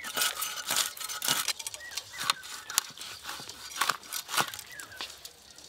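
Snakehead fish being cut and scraped against the curved iron blade of a boti: irregular sharp scraping and tearing strokes.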